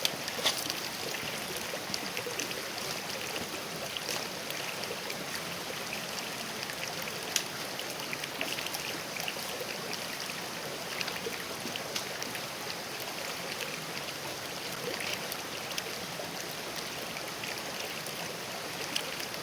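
Shallow creek babbling and rippling over rocks: a steady rush of running water with many small splashes and ticks.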